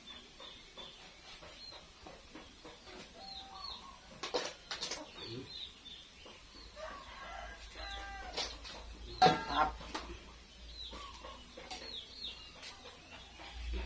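Chickens clucking, with short high chirps throughout and a louder call about nine seconds in, along with a few sharp clicks.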